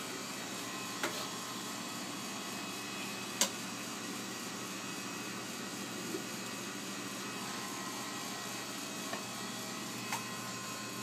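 Steady machine hum of a kitchen, with a few light clicks and knocks, the sharpest about three and a half seconds in.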